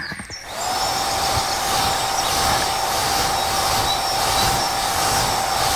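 Hair dryer switched on about half a second in and running steadily: an even rush of air with a steady whine.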